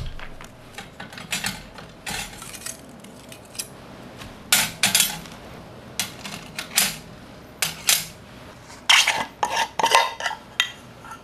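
Thin stainless-steel plates of a flat-pack camping stove stand clinking and scraping as they are slotted together, in a string of short metallic clatters. It opens with one sharp knock, and the busiest clattering comes about halfway through and again near the end.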